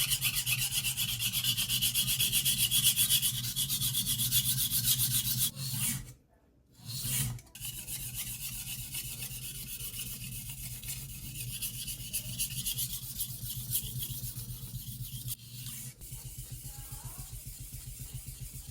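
Steel knife blade being stroked rapidly back and forth on a whetstone, sharpened by hand. The grinding is loudest in the first half, stops briefly about six seconds in, then carries on more quietly.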